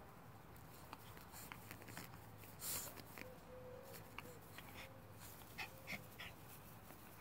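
Yorkshire terrier puppy chewing and mouthing a toy, with faint soft whimpers and short chewing clicks. A brief scuffling burst comes about a third of the way in, and a few sharper little sounds come near the end.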